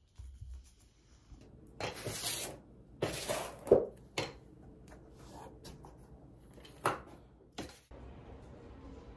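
A few brief rustles and soft bumps of a foam roller being handled and rolled on an exercise mat, the loudest a little under four seconds in. Near the end these give way to a steady faint room hum.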